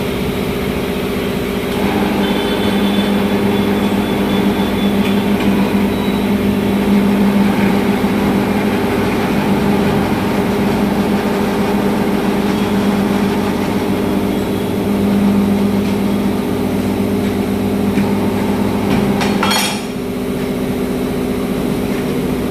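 Steady mechanical drone of a running motor or engine, holding several fixed low tones, with a brief sharp sound near the end.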